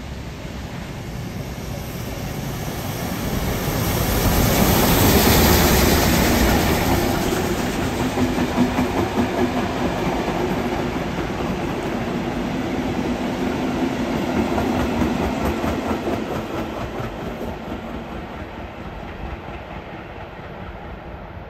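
MÁV class 424 steam locomotive and its passenger coaches passing through a station. It is loudest as the locomotive goes by about five seconds in, then the coaches' wheels click over the rail joints in a steady rhythm that fades as the train draws away.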